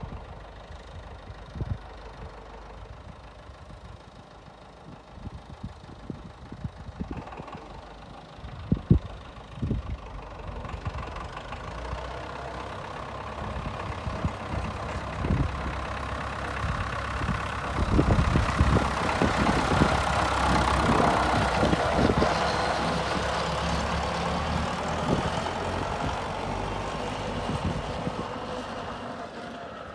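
Old David Brown tractor's engine running as the tractor drives along a farm track, getting louder as it comes close, loudest about two-thirds of the way through, then easing off as it moves away. Wind buffets the microphone in gusts.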